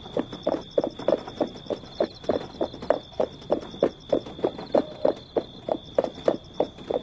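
Horse hooves clip-clopping in an even, steady rhythm, about three hoofbeats a second, with a faint steady high whine behind.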